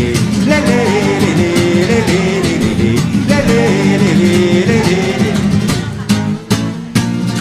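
Live music: acoustic guitar strumming with a voice, the end of a song's refrain; the music drops away briefly about six seconds in before the guitar comes back.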